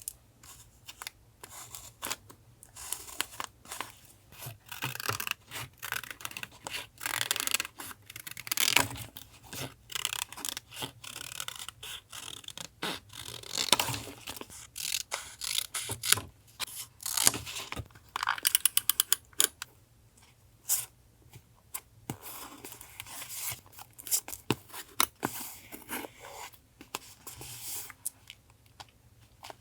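Paper collage work close to the microphone: paper handled, cut with scissors and torn, with scraping and rustling between the cuts. A quick, even run of clicks comes a little past halfway.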